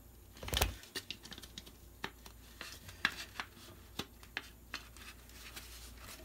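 Polymer M16 handguard being handled and worked onto an airsoft rifle's front end: a rubbing bump about half a second in, then a string of small, irregular clicks and taps of plastic against the rifle.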